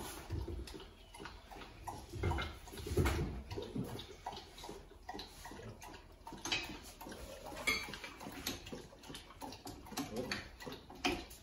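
Scattered clinks and knocks as a glass bowl of dough is set into a stand mixer and its attachment is fitted, over faint kitchen noise.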